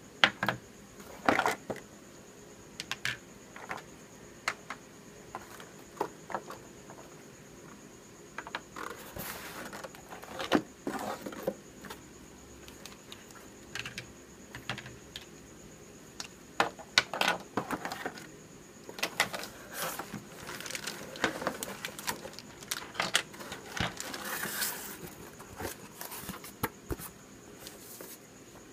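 Hard plastic toy pieces knocking and clattering as they are pulled from a cardboard box and set down on a wooden tabletop, with cardboard and plastic wrap rustling. The knocks come irregularly, several every few seconds, and the rustling thickens in the later part.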